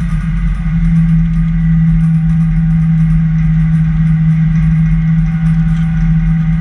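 Car engine and road noise: a steady low drone.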